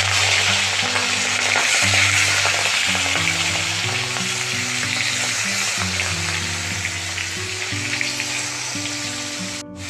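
Marinated prawns sizzling and spattering in hot mustard oil in an aluminium kadai, just added to the oil. The sizzle is loudest at the start and eases slowly as they fry, and they are stirred near the end. Soft background music plays underneath.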